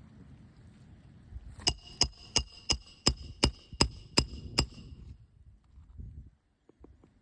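Roofing hammer driving a nail into an asphalt 3-tab shingle: about nine quick, evenly spaced strikes, roughly three a second, each with a bright ringing ping, starting a second or two in and stopping about halfway through.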